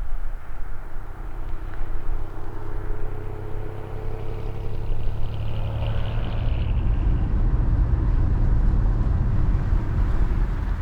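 Car driving: a steady low rumble of engine and road noise, with a faint whine in the middle that rises a little in pitch.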